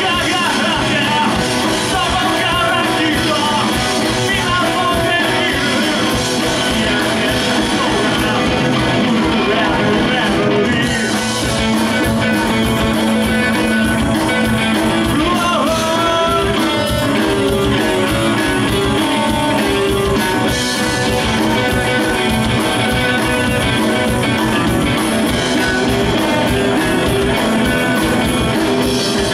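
Live rock music from a three-piece band with no bass: electric guitar and singing over a steady, dense beat, played loud.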